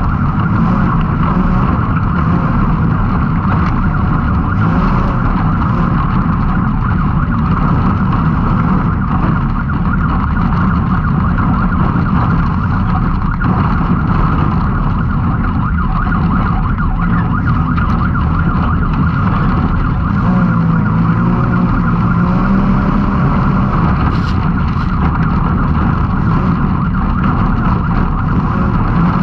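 Can-Am Maverick X3 side-by-side's three-cylinder engine running hard at race pace, a loud, steady drone mixed with the rough noise of the machine over the ground. Its pitch wavers for a few seconds about two-thirds of the way through.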